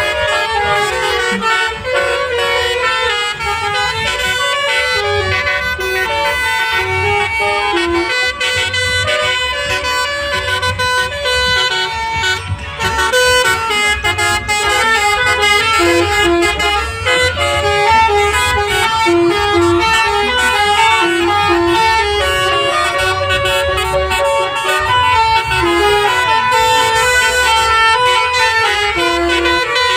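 Indonesian bus telolet horn: a set of multi-tone air horns playing a melody, the pitch jumping note to note and going on without a break, over a low engine rumble.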